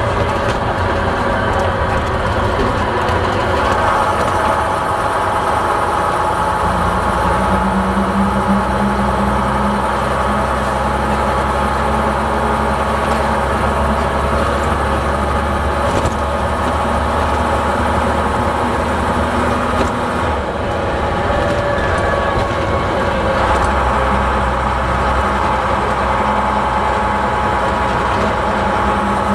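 Bristol VR bus's Leyland diesel engine running, heard from inside the passenger saloon. The engine note stays steady but shifts in pitch about a quarter of the way in and again about two-thirds of the way through.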